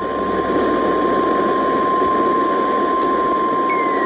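NOAA Weather Radio warning alarm tone, a single steady pitch near 1050 Hz, over heavy crackling radio static; it is the alert signal that comes before a spoken warning.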